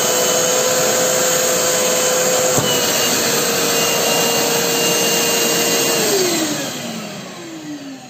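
Shop-Vac Pro wet/dry vacuum running with a steady whine and rush of air as the last of a rain jacket is sucked through its side inlet, with a short click about two and a half seconds in. About six seconds in the motor winds down, its whine falling in pitch and fading.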